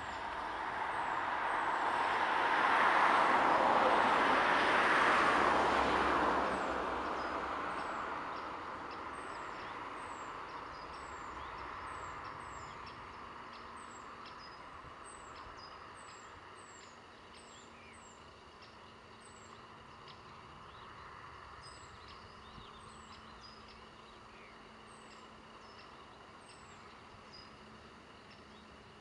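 A vehicle passes, its noise swelling over the first few seconds and fading away by about eight seconds in. After that, faint short high chirps repeat about once a second over a faint steady hum.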